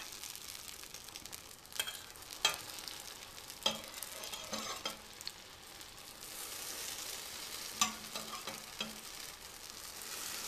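Zucchini fritters sizzling in hot oil in a stainless steel frying pan, with several sharp metallic clinks as a metal spatula and fork knock against the pan to turn them over.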